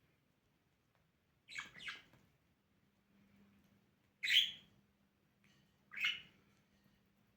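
Budgerigar giving short, harsh chirps: a quick pair about a second and a half in, then single calls about two and a half and four and a half seconds in.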